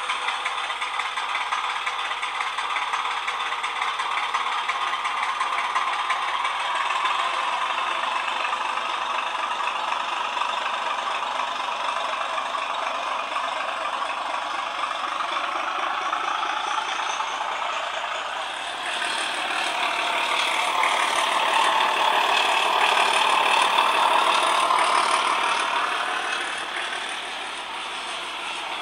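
Model railway train running: the Roco ČD class 751 model locomotive's sound decoder playing a diesel engine sound through its small speaker, mixed with the rattle of the model train's wheels on the track. About two-thirds through the sound changes and grows louder, its pitch wavering for several seconds.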